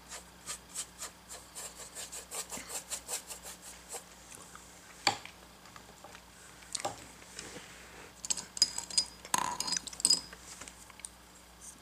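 Paintbrush scrubbing quickly back and forth over a painted board, about five strokes a second, wetting the acrylic with drying-time extender. After that come a few sharp clicks and a short clatter near the end.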